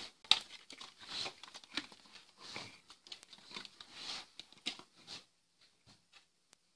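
Handling noise: rustling of a leather jacket and hands, and clicks and knocks as a plastic car instrument cluster panel is picked up and held. It comes in short bursts with a sharp click about a third of a second in, then thins to a few faint ticks after about five seconds.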